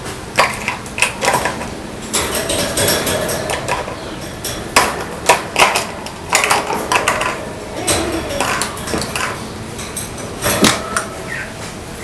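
Crow moving and pecking about the wire floor of its metal cage: irregular sharp metallic clicks, taps and rattles.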